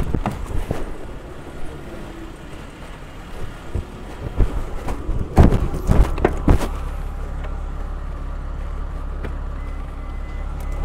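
Knocks and thumps from a car's open rear hatch as food is taken out of the cargo area, a cluster of them about five to six seconds in. After them a steady low engine rumble from a nearby vehicle starts up and carries on.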